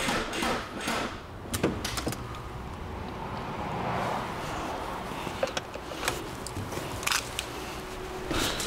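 Diesel car's starter motor cranking without the engine catching, with a few sharp clicks along the way: the battery is too flat to start it, and it will need a jump start.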